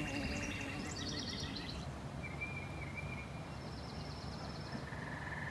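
Outdoor ambience: several short, rapid bird trills at different steady pitches overlap over a low background hiss.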